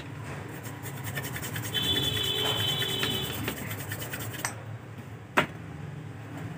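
Cotton swab wet with solvent scrubbing the solder side of a TV circuit board, cleaning the pads where the vertical IC was desoldered: a rapid scratchy rubbing that stops about four and a half seconds in, followed about a second later by a single sharp click.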